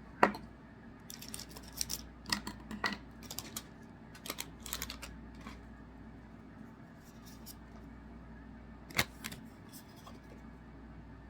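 Trading cards being handled: scattered light clicks and soft rustles as cards are flipped through and set down, with a sharper click just after the start and another about nine seconds in.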